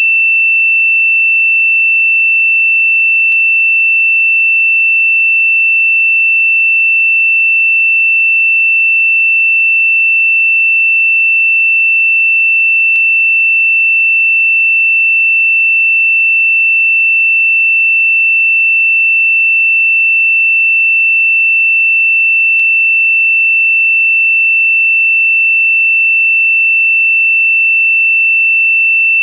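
A synthesized pure sine tone, high-pitched and held perfectly steady, of the kind played as a meditation 'frequency'. A very faint click comes about every ten seconds.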